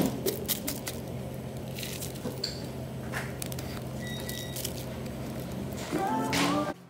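A plastic straw poked through the domed plastic lid of a cup and worked into a thick smoothie: scattered clicks, crinkles and squishing over a steady low hum.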